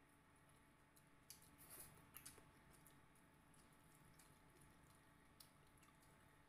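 Faint wet eating sounds from eating with the fingers: a few soft clicks and smacks, most of them between about one and two and a half seconds in, over near silence.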